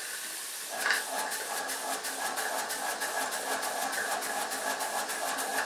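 Small homemade model steam engine on live steam starting up about a second in, then running steadily with a rapid, even beat over a hiss of steam as it drives a flat belt and light Meccano models.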